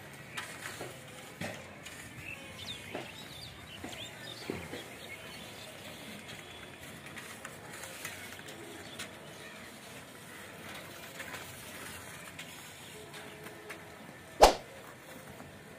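Quiet open-air ambience with faint bird chirps and scattered light clicks, broken near the end by a single sharp knock.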